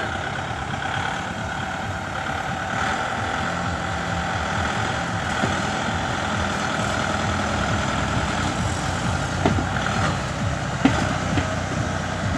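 Diesel tractor engines of a Kubota MU5501 and a Swaraj 744 straining under full load in a tug-of-war pull, a steady heavy drone. A few sharp knocks come in the last few seconds.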